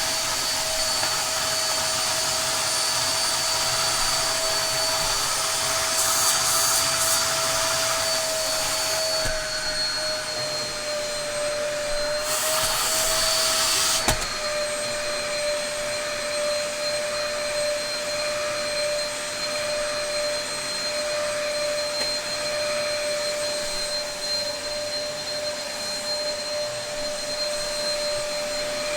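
Dyson DC03 upright vacuum cleaner running: a steady motor whine over rushing air. The pitch dips slightly about ten seconds in, there are short stretches of louder hiss around six and twelve seconds in, and a sharp click comes near fourteen seconds.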